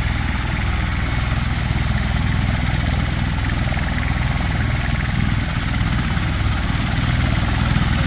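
V-22 Osprey tiltrotor running with its rotors turned up in helicopter mode: a steady, loud rotor and engine noise, heaviest in the low end.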